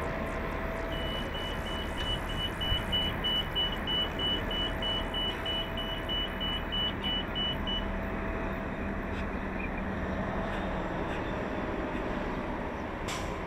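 Wheelchair-ramp warning beeper on a New Flyer XDE40 hybrid bus, sounding about three short high beeps a second while the front fold-out ramp stows, then stopping. Under it is the bus's steady running hum.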